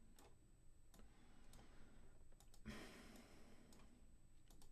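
Near silence with a few faint, scattered clicks, such as a mouse or stylus makes, and a short soft rush of noise a little past the middle.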